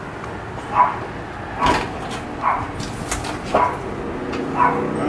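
A dog barking: about five short barks, roughly a second apart.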